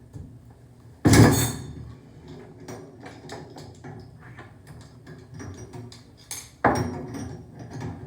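Two loud clanks about five and a half seconds apart, with light clicks and taps of tools and metal parts being handled in between.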